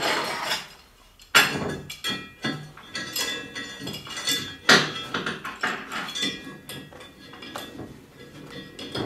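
Steel parts and hand tools clanking and clinking on a steel welding table as they are handled: a run of sharp metal knocks, each with a short ringing after it, the loudest about one and a half and five seconds in.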